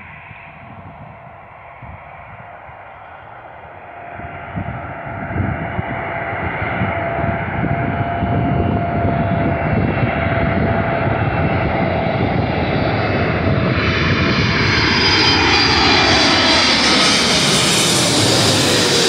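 Boeing 777 freighter's GE90 turbofan engines on final approach, growing steadily louder as the jet comes in low and passes overhead. Its engine whine falls in pitch over the last few seconds as it goes by.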